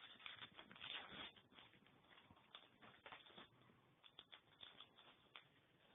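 Trading card booster pack wrapper being torn open and its cards handled: faint crinkling and crackling, densest in the first second and a half, then scattered sharp crinkles.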